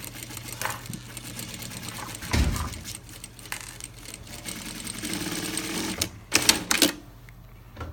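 NewTek industrial single-needle sewing machine fitted with a roller foot, stitching through two layers of heavy vinyl: a rapid, even clatter of needle strokes. There is a dull thump about two and a half seconds in, and a few sharp clacks near the end, after which the machine stops.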